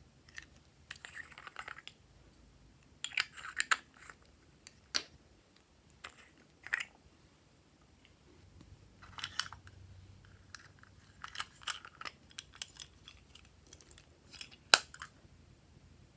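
Glossy slime being squished and stretched by hand, giving irregular sticky clicks and short crackly pops, with one sharp snap near the end.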